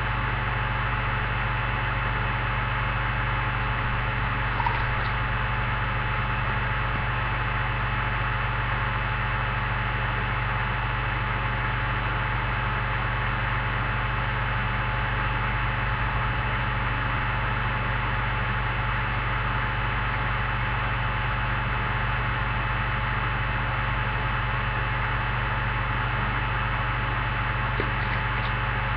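Steady electrical hum with hiss behind it, unchanging throughout, with one faint click about four and a half seconds in.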